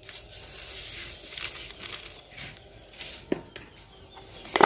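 A plastic seasoning sachet being torn open and crinkled as it is emptied over the bowl, with two sharp taps near the end.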